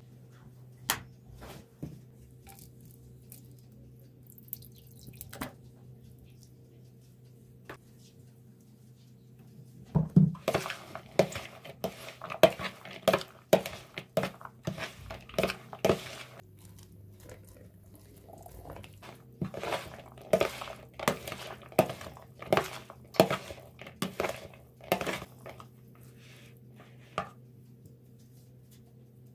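Metal spoon tossing a chopped salad in a bowl: scattered clinks against the bowl, then two busy stretches of quick knocks and scrapes, the first starting about a third of the way in and the second past the middle. A low steady hum runs underneath.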